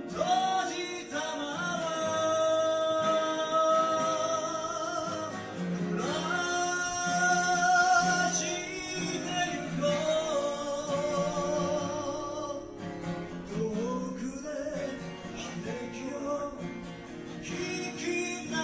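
A man singing a slow ballad to his own strummed steel-string acoustic guitar, holding long notes with vibrato.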